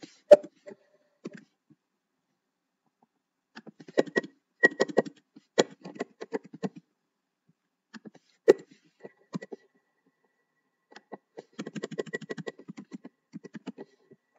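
Typing on a computer keyboard in several bursts of rapid key clicks, with silent pauses between them.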